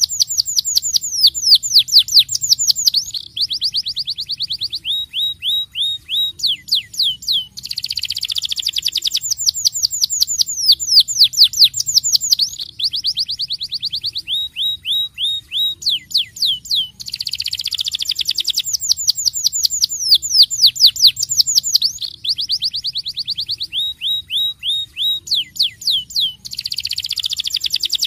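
Domestic canary singing a long rolling song: a buzzy trill, then runs of quick falling whistled notes, then a string of short repeated notes. The same phrase comes round about every nine to ten seconds.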